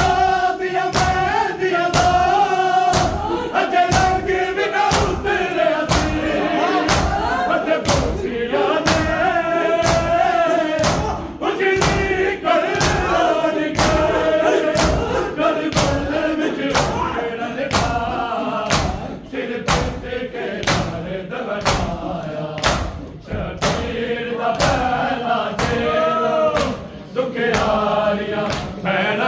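Punjabi noha chanted by a chorus of men's voices, with rhythmic hand-on-chest beating (matam) keeping time, about two strikes a second.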